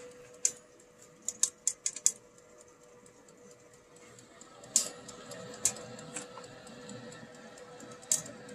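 Roasting coffee beans cracking in an SC/TO (Stir Crazy popper and turbo oven) roaster: irregular sharp snaps, several in quick succession about a second and a half in and more scattered after, over the roaster's steady hum. The roast is at a stage that is starting to sound like second crack.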